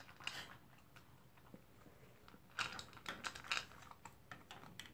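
Toy poodle eating from a bowl in a wire crate: faint, irregular clicks and crunches of its food. A cluster of louder clicks comes a little past halfway, as the metal crate door is closed and latched.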